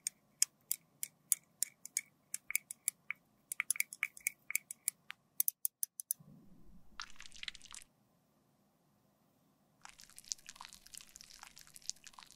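A glass stirring rod clinking against the wall of a small glass beaker while red liquid lip colour is stirred. The ticks come about three or four a second, each with a light ring, for about six seconds. Later comes soft, wet, sticky crackling as the gloss is worked with an applicator.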